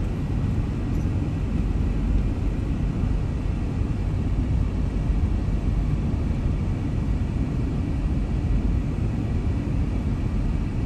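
Car driving on the road: a steady low rumble of road and engine noise.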